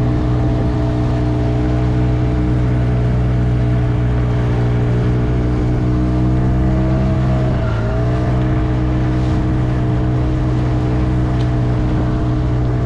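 Small outboard motor running steadily at trolling speed, with water rushing past the inflatable boat's hull; the engine note dips briefly about halfway through, then steadies again.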